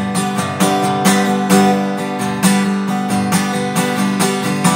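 Acoustic guitar strummed in a steady rhythm, about three strokes a second, its chords ringing between strokes.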